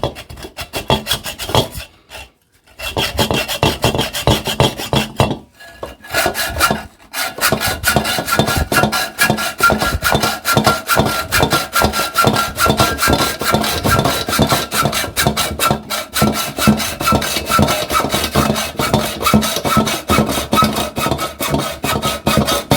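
Hand saw cutting through the steel shell of a refrigerator compressor in rapid back-and-forth strokes, with a few short pauses in the first seven seconds. A steady ringing note runs under the strokes from about six seconds in.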